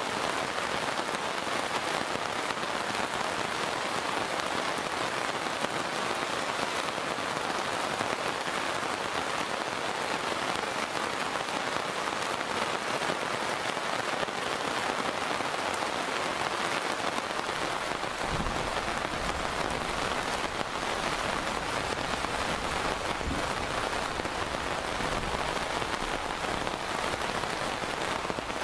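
Heavy monsoon rain falling steadily on a wet road, a dense even hiss. About two-thirds of the way through, a low rumble joins in underneath.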